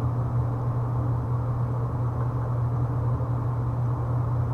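Steady low electric hum of an industrial sewing machine's motor running idle, with no stitching.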